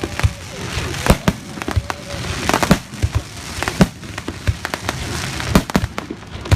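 Aerial fireworks going off: a rapid, uneven series of loud bangs with crackling between them.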